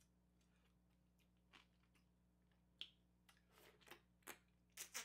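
Wet sucking and smacking of the mouth as passion fruit pulp is slurped from its cut half shell: short smacks and clicks, a few at first and coming thicker toward the end.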